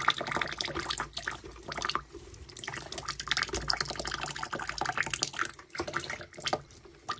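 A thin stream of tap water trickles into a plastic bucket while a regent parrot bathes on its rim. The bird flutters its soaked wings through the stream, making irregular splashes and spatters.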